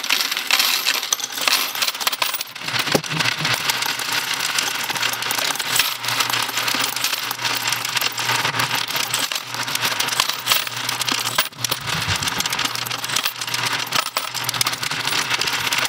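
Royal Sovereign FS-500 electric coin sorter running while coins are poured into its hopper: a dense, continuous clatter of coins rattling through the sorting track and dropping into the tubes, over a steady low motor hum.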